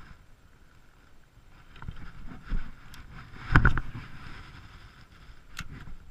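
Scattered knocks and clicks on a fishing boat, with the loudest, a short cluster of thumps, about three and a half seconds in.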